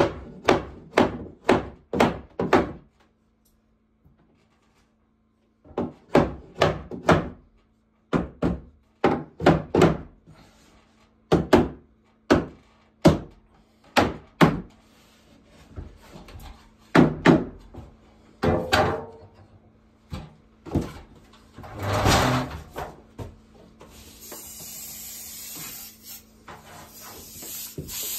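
Hammer blows on wooden ceiling boards overhead, in quick runs of several strikes at about three a second with short pauses between runs. A steady hiss comes in during the last few seconds.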